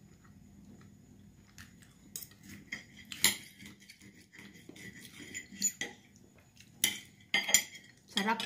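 Metal cutlery clinking and scraping on a plate while cutting up a piece of sausage: a run of sharp, uneven clinks starting about a second and a half in, the loudest about three seconds in and again near the end.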